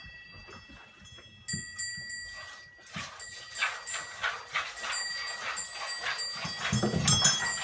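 Goat being milked by hand: rhythmic squirts of milk into a pail, about three a second, starting about three seconds in, over a steady high ringing like small bells. A goat bleats briefly near the end.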